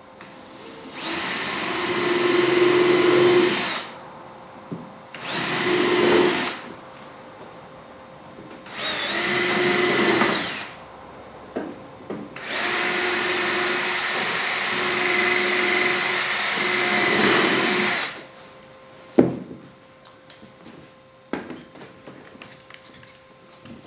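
Cordless drill with a long bit boring angled holes through the wooden arch strips into a wood block, in four runs of steady whine, the last and longest lasting about five seconds. A few sharp knocks follow near the end.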